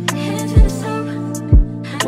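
Background music with a steady beat and deep bass notes that slide down in pitch, about one a second.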